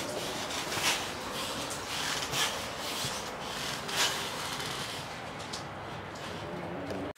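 Rubbing and scraping noises over a steady hiss, a soft stroke every second or so, until the sound cuts off abruptly at the end.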